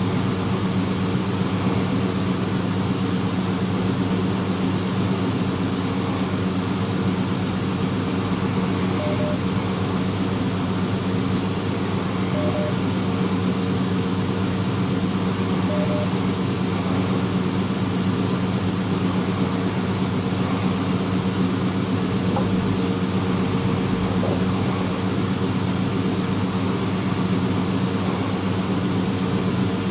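A steady low mechanical drone, like a vehicle's engine heard from inside, holding the same pitch and level throughout.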